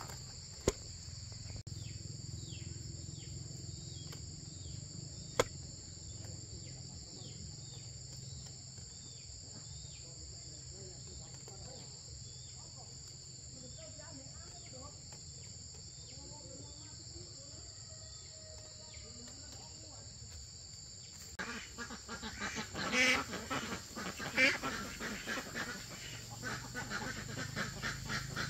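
A steady, high-pitched chorus of crickets and other insects, with a short falling chirp repeating about twice a second through the first half and two sharp clicks in the first few seconds. About three-quarters through, a louder, busy flurry of bird calls starts up and runs to the end.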